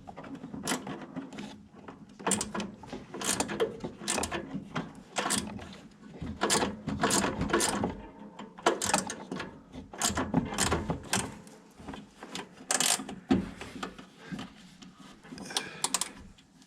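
Hand ratchet clicking in short, irregular bursts of strokes as a screw on the furnace is backed out.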